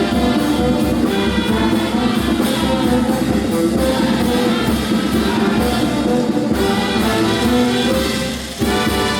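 Brass band playing a marinera norteña, with trumpets and trombones over a steady beat; the music dips briefly near the end.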